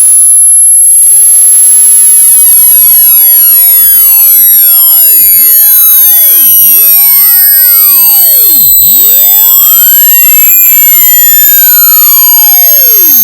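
Very loud synthesized electronic tones: a piercing high whistle held steady, over many tones gliding up and down in pitch at once, like a computer-generated sweep meant to be unpleasant to hear.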